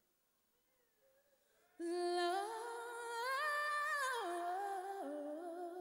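A woman singing solo and unaccompanied: after a near-silent pause, her voice comes in about two seconds in with one long, slow, melismatic phrase that climbs in steps, falls back near the end and is held.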